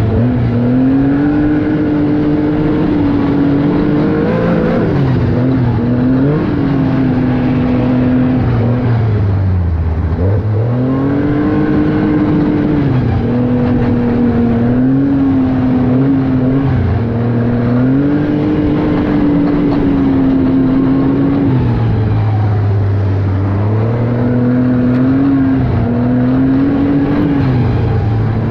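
Arctic Cat snowmobile engine running along the trail, heard from on board. Its pitch rises and falls with the throttle, easing off to a lower note about a third of the way in and again about four-fifths of the way through before picking back up.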